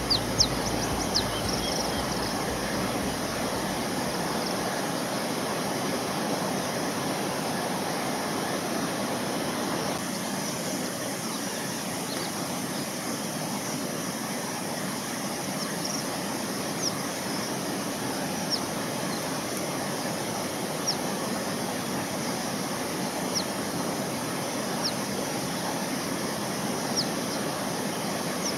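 Steady outdoor background noise with no clear single source, and brief high chirps scattered every second or two.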